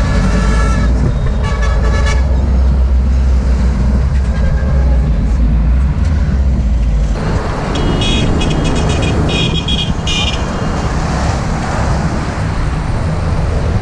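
Road traffic heard from a moving bus, over a steady low engine rumble. Vehicle horns honk in short repeated bursts near the start and again about eight to ten seconds in, the second set higher-pitched.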